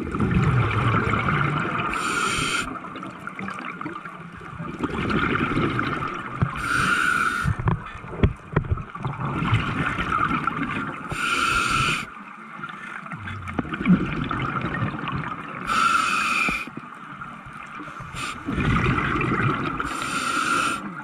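Scuba regulator breathing underwater: a long, low rumble of exhaled bubbles followed by a short hiss of inhaled air, repeating about every four and a half seconds.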